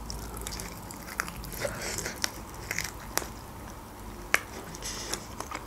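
Close-miked mouth sounds of eating a chicken wing: biting and chewing the meat, with scattered sharp, wet clicks and smacks.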